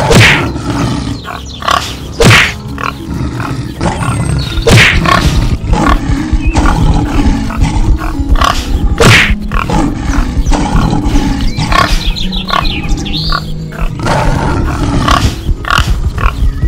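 Dramatic background music laid under cartoon animal sound effects: roars and grunts, with sharp hit sounds every few seconds.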